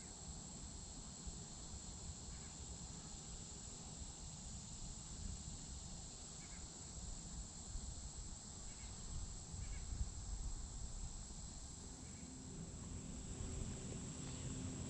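Quiet riverside ambience: a steady high-pitched insect drone over a low wind rumble, with a few faint bird chirps.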